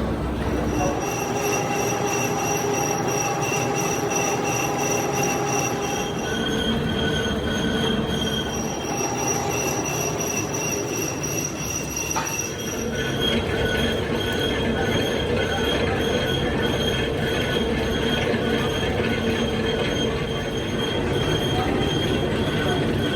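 Workshop metalworking machinery running with a steady metal-on-metal squeal made of several high tones over a grinding noise. The pitch of the tones shifts about six seconds in and again about thirteen seconds in.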